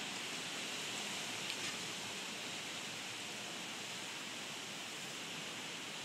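Steady outdoor background hiss, even and unchanging, with a faint tick or two.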